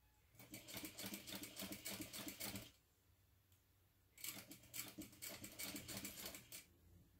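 Juki sewing machine topstitching through two layers of cotton fabric: two runs of rapid, even needle strokes, about two and a half seconds each, with a pause of about a second and a half between them.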